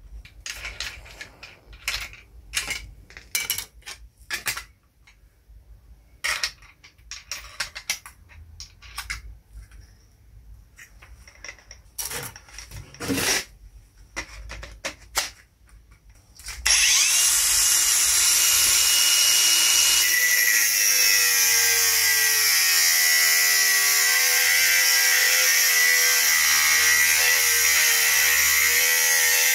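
Scattered clicks and knocks of a disc and tool being handled, then, a little past halfway, a 115 mm brushless cordless angle grinder starts and runs loud and steady to the end. From about three seconds after it starts, its pitch wavers as the disc is pressed into the work.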